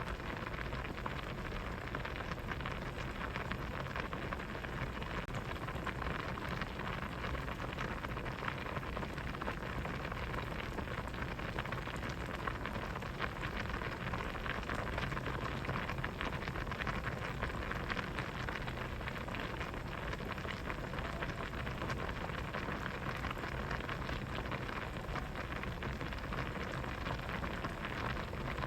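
Pot of vegetable soup at a steady boil, a dense, even crackle of small bubbles popping.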